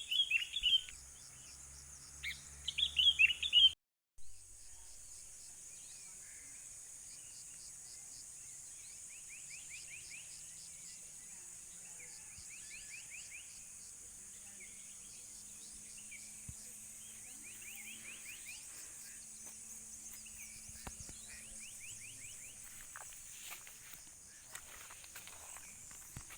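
Birds calling loudly in rapid sweeping phrases for the first few seconds, cut off by a brief gap. After it, a steady high-pitched chirring of insects runs on, with short quick bird trills repeating every few seconds.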